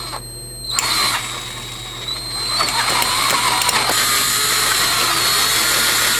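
Handheld drill boring a pilot hole into a snapped half-inch bolt for a screw extractor. It runs in a short burst about a second in, then steadily with a high whine until it cuts off suddenly at the end.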